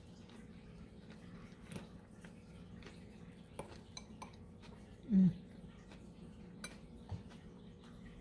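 A metal fork stirring salad in a glass bowl, with a few light clinks and clicks of fork against glass. About five seconds in there is one brief, louder low sound.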